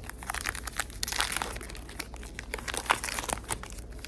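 Wrapper of a trading card pack being torn open and crinkled in the hands, a dense run of crackling through the whole stretch.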